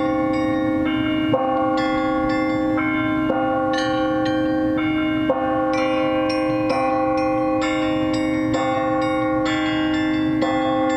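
Bell tower bells playing a holiday melody: struck notes at a steady pace of about three every two seconds, each ringing on under the next.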